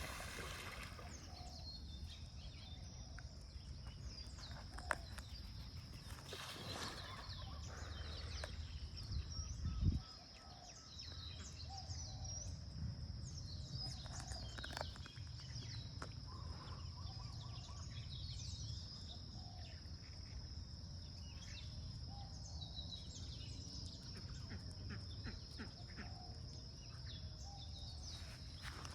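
Small birds chirping over and over above a steady high-pitched hiss and a low rumble of wind on the microphone, with a single knock about ten seconds in.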